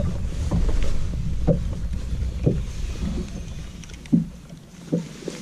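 Wind rumbling on the microphone over open water, dying down about four seconds in, with a few soft knocks about a second apart.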